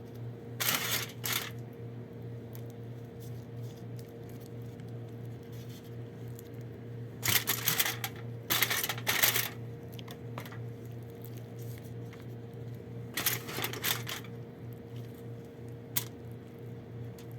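Clusters of short rustling and clinking handling noises as food and kitchen items are moved, with a few single clicks, over a steady low electrical hum.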